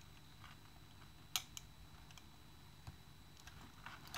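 A few faint, sparse clicks of small plastic RC-car parts being handled, over quiet room tone; the sharpest comes about a second and a half in.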